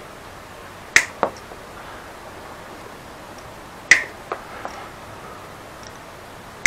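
Two sharp snaps about three seconds apart, each followed by a softer click: clamps being unfastened on a bicycle.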